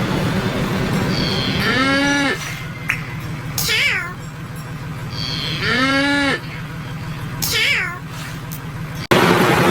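A cow moo sound effect, pitched up and distorted by audio effects so it sounds like a meow, played twice about four seconds apart over a steady buzzing noise. Each call is followed by a short, high sweeping cry. Near the end the noise switches abruptly to a louder hiss.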